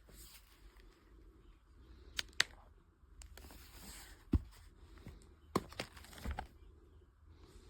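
Handling noises: rustling with a handful of sharp clicks, the loudest a little past two seconds and around four and a half seconds in.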